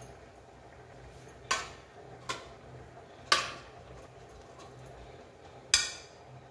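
Steel ladle clinking against a stainless steel steamer basket and a ceramic plate as steamed dumplings are lifted out. There are four sharp clinks, each ringing briefly; the ones about three seconds in and near the end are the loudest.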